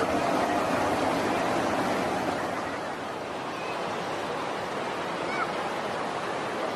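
Stream water rushing over rocks in rapids below a waterfall: a steady rush of noise that drops a little in level about two and a half seconds in.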